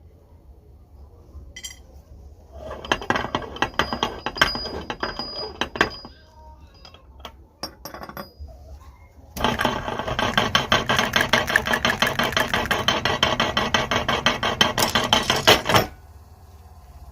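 Meat grinder crushing plastic Ludo dice: dense crackling and crunching, a shorter bout about three seconds in, then a louder, steady bout from about nine seconds in that cuts off suddenly near the end.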